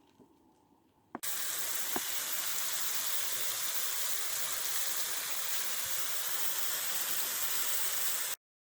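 Rushing water, a steady loud hiss that starts suddenly about a second in and cuts off abruptly near the end.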